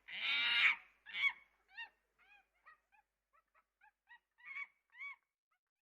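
Monkey calling: a loud, harsh screech at the start, then a string of short, arching chirps that grow fainter and stop about five seconds in.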